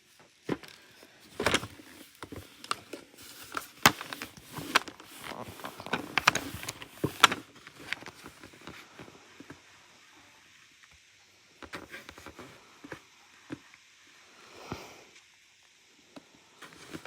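Plastic vacuum cleaner parts being handled while packed debris is cleared from a clogged Hoover: a run of sharp clicks and knocks in the first half, then quieter scattered rustling and a soft scrape.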